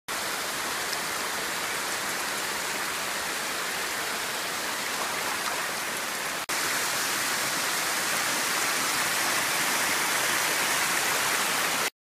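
Steady rush of a mountain stream cascading over rocks. There is a brief break about halfway through, after which the water sounds slightly louder.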